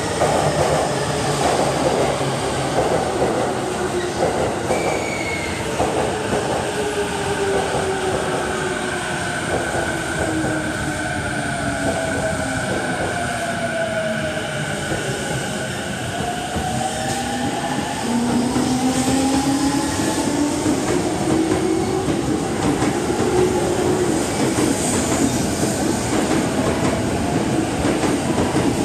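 A JR E231-800 series electric commuter train pulls out of the station and accelerates. Its traction motors whine in several tones that slide down and then climb in pitch, typical of a VVVF inverter drive. The wheel and running noise grows louder about two thirds of the way through.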